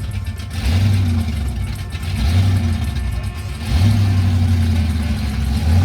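A car engine running with a deep low rumble, revved in short surges about every one and a half seconds.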